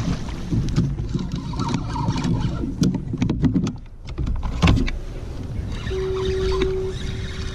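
Kayak paddle strokes dipping and splashing over a steady low rumble, with a quick run of clicks about three seconds in as a fishing rod and reel are handled. A short steady tone sounds near the end.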